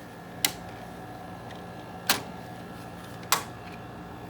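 Three sharp snaps as the front faceplate of a 1987 Danby 7500 BTU window air conditioner is unclipped and pulled off, spaced over about three seconds. Under them the unit runs with a steady low hum.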